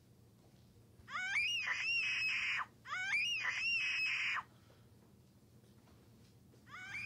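High-pitched wailing cries of pain from a man who has fallen down a stairway: two cries about a second in, each rising and then wavering, and a third starting near the end.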